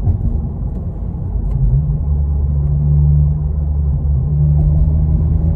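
Honda Civic Si's 1.5-litre turbocharged four-cylinder heard from inside the cabin while driving: a low drone, with a steady engine note that comes in and climbs slightly about two seconds in, then holds.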